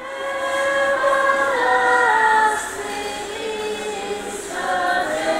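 Church choir singing a hymn, several voices holding long notes and gliding from one to the next.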